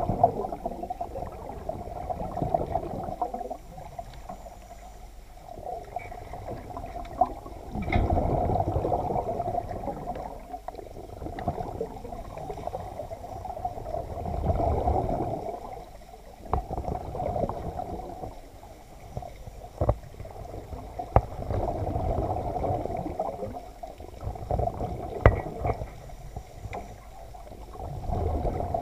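Underwater bubbling and muffled water noise picked up through a submerged camera, swelling and fading every several seconds, with a few sharp knocks.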